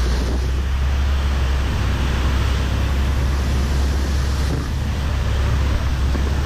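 The steady rush of the Rhine Falls and the churning whitewater at its foot, heard from a boat close in, with a heavy low rumble under it.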